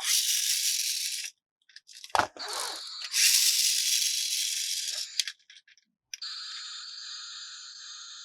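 Plastic toy and packaging rattled and crinkled by hand, with a sharp knock about two seconds in. From about six seconds a steady, high-pitched buzzing tone takes over.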